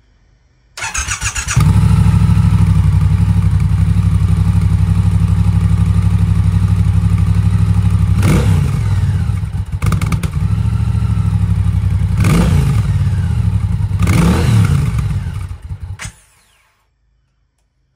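2022 Triumph Bobber's 1200 cc parallel-twin engine through its stock exhaust. It cranks briefly about a second in and catches, then idles steadily. It is revved three times, each rev rising and falling within about a second, and is switched off near the end.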